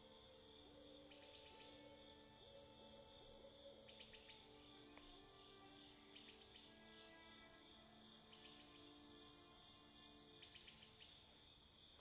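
Faint nature ambience: crickets trilling steadily and high, with a few brief chirps, over soft music with slow held notes.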